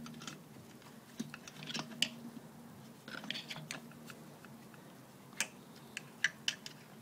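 Small clicks and light metallic rattles of a string trimmer's carburetor and throttle cable being handled as the cable is worked free of the carburetor's throttle linkage, with a few sharper clicks near the end.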